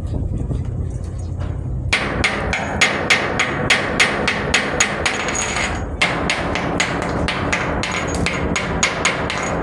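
Repeated hammer strikes, about three a second, over a steady noise that starts abruptly about two seconds in. The strikes pause briefly near six seconds and then go on.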